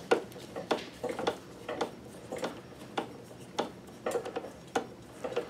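A screwdriver turning a screw into the sewing machine's sheet-metal base plate, giving a series of short metallic clicks, roughly two a second and unevenly spaced.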